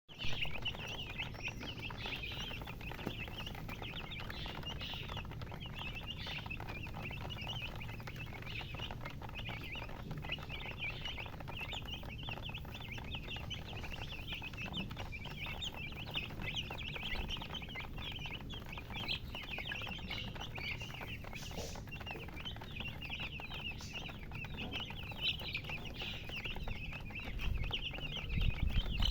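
Chickens chirping: many high, short peeps overlapping without a break. A low rumble grows louder near the end.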